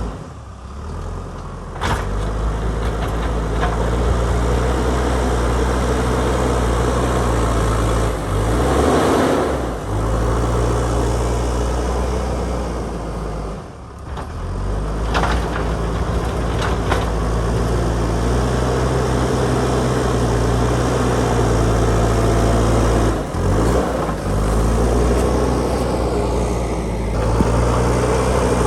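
JCB backhoe loader's diesel engine running steadily under work. Its note dips briefly a few times as the load changes, with a few short clanks.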